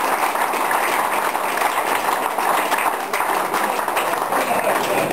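A small crowd applauding, many hands clapping at a steady level.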